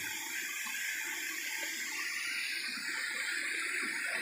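Steady rushing hiss of flowing creek water.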